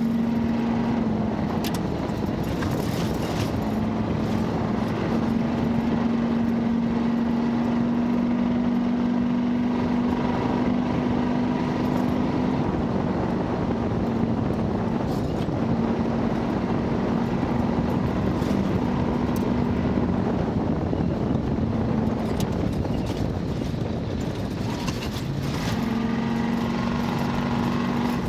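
1972 Ford Bronco's engine running at a fairly steady pitch under load, easing off briefly a couple of times. It sits over a constant din of tyre and wind noise, with occasional knocks from the rough off-road course.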